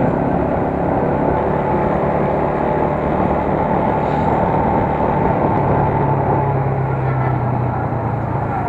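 United US 125 motorcycle's single-cylinder four-stroke engine running steadily while riding at street speed, with road and wind noise.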